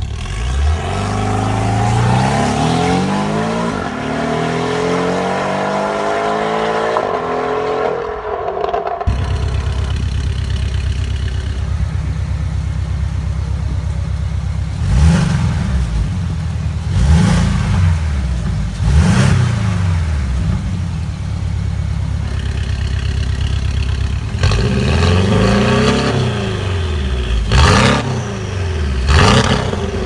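Porsche 718 Boxster/Cayman's turbocharged flat-four through an Fi Exhaust valved catback system. It pulls hard with the pitch climbing for about eight seconds and cuts off sharply, then idles. From about fifteen seconds in comes a string of quick throttle revs, each rising and falling fast.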